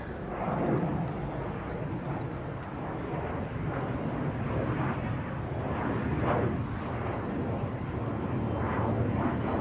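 Twin-engine jet airliner passing overhead, a steady rumbling engine noise that grows slightly louder.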